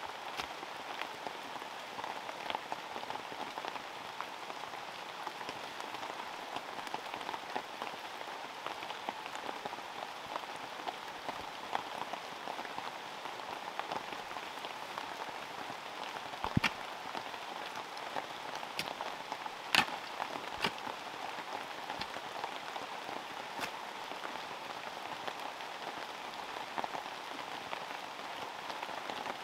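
Heavy rain falling steadily, with scattered individual drop hits and two sharper knocks a little past halfway.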